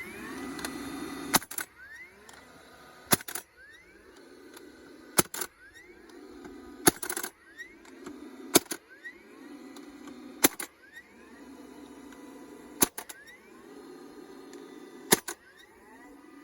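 DeWalt DCFS950 20 V cordless fencing stapler driving staples into wooden fence posts: a sharp crack about every two seconds, eight in all. Between the cracks its motor whirs steadily as it pumps up pressure for the next shot, with a short rising whine after each one.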